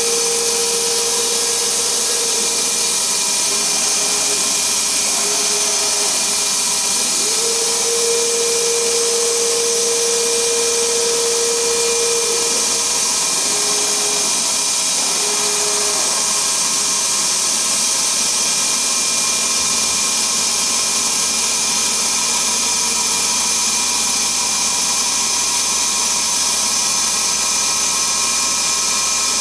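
Dongshin Drill Master 2007 machine running steadily, its motor whine and a strong high hiss continuous; the whine drops slightly in pitch and recovers a few times in the first half, then settles.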